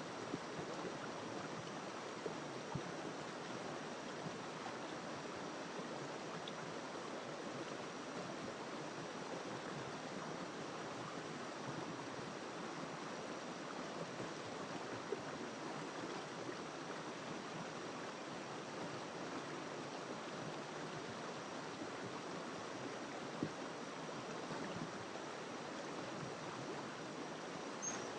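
River water flowing, a steady rush with a few brief splashes now and then.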